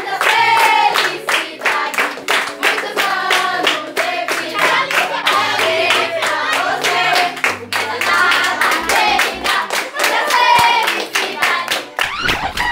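A group of young people singing a birthday song together with steady rhythmic handclapping.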